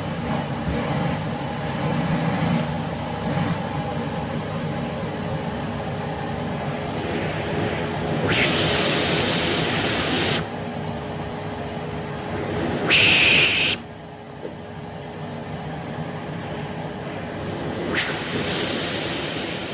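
Vacuum cleaner running steadily: a rushing of air with a faint constant motor whine, broken by stretches of louder, brighter hissing that begin about eight seconds in, come briefly around thirteen seconds, and return near the end.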